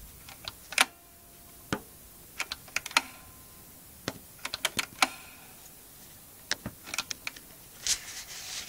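Sharp mechanical clicks and small knocks in irregular clusters, from an HMV model 109 wind-up gramophone being handled. A few of the clicks have a faint brief ring.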